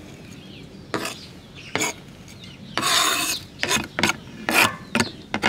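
Kitchen knife blade scraping across a plastic cutting board, pushing diced onion off into a ceramic dish. About eight short scrapes, with a longer one near the middle.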